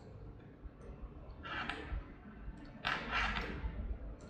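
Faint computer mouse clicks, with two short soft hissing noises between them.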